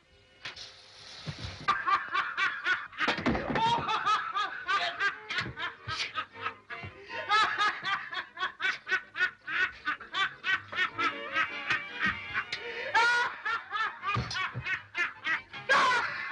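A man laughing hysterically in fast, high-pitched bursts, several a second, that go on without a break. A short hissing noise comes just before the laughter starts.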